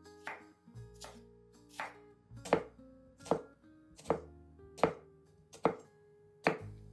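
A knife chopping on a cutting board in slow, even strokes, about one every three-quarters of a second, over soft background music.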